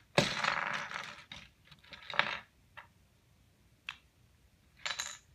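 Plastic Lego bricks being pulled apart and clattering into a pile of loose bricks on a wooden table. A loud rattling clatter comes just after the start and lasts about a second, followed by a few shorter clicks and clatters.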